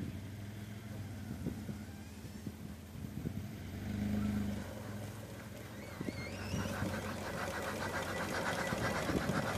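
Allis-Chalmers WC tractor towed in gear so that its unfired engine turns over, under the steady low hum of the tow vehicle. About six seconds in, a whine rises and a fast, even mechanical clatter builds and grows louder as the engine spins.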